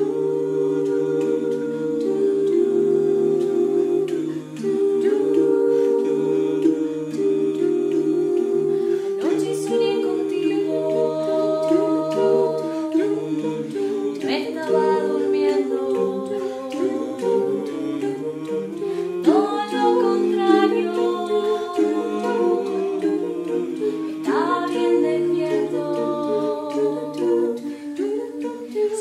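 A cappella vocal quintet of men's and women's voices humming and singing wordless close harmony over a held low bass note. Fresh vocal entries come in about every five seconds from roughly nine seconds on.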